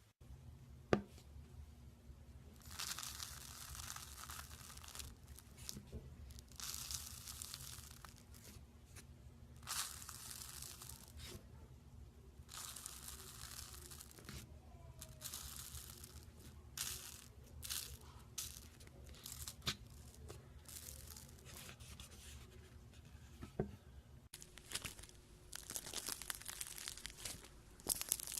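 Slime being stretched and squeezed by hand, making crackling, tearing sounds in repeated spells of a second or two, over a steady low hum.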